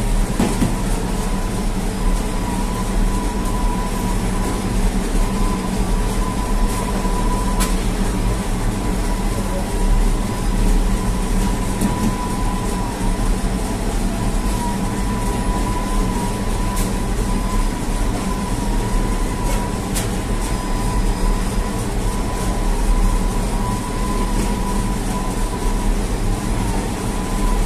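Automatic dough divider and belt conveyor running: a steady mechanical hum with a constant high whine and a few faint clicks.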